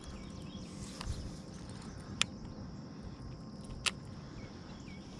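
Steady insect buzzing in the background, with two short sharp clicks, about two seconds in and again near four seconds, from a baitcasting reel being handled during a cast.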